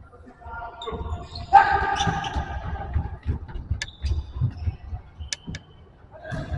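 Futsal game on an indoor court: players shouting to each other over repeated thuds of the ball and feet. Three or four short, sharp squeaks come in the second half.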